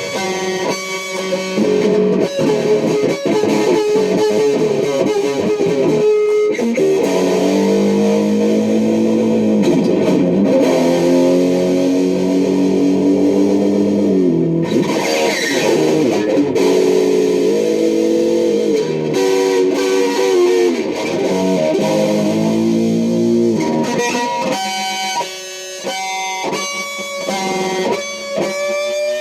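Electric guitar playing, with notes bent and sliding up and down for much of the time.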